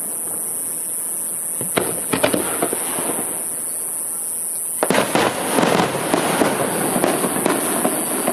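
Fireworks going off: a few sharp cracks about two seconds in, then a dense run of crackling from about five seconds in that lasts a few seconds.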